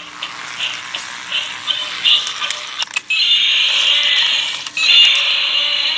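Battery-operated toy gecko's electronic sound effects: tinny, high-pitched music and squeals from its small speaker, loudest in two long stretches in the second half, with scattered clicks.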